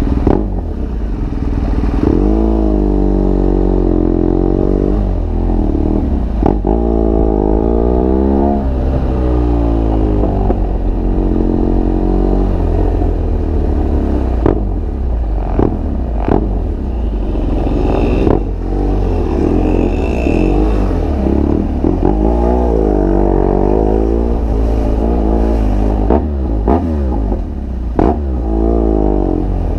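BMW R1200GS Adventure's boxer-twin engine through an aftermarket SC Project GP exhaust, revving up and easing off again and again at low road speed, over a deep rumble. A few short sharp clicks break in now and then.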